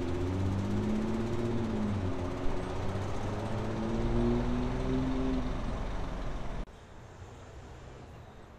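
City road traffic, with a vehicle engine's drone wavering in pitch over the roar. About six and a half seconds in, it cuts off abruptly to a much quieter street background.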